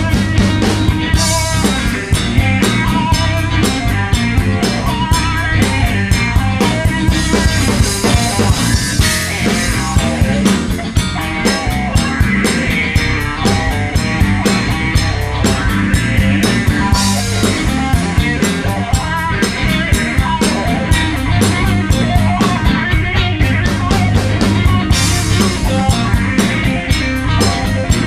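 Blues band playing an instrumental break: a guitar solo over a steady drum-kit beat and bass.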